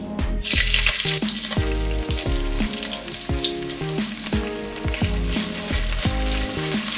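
Sliced onions hitting hot ghee and oil with whole spices, frying with a sizzle that starts suddenly about half a second in and keeps on while they are stirred with a wooden spatula.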